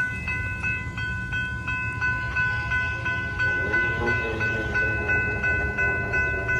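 Rumble of a BN hopper freight train, with a ringing tone repeating about three times a second over it.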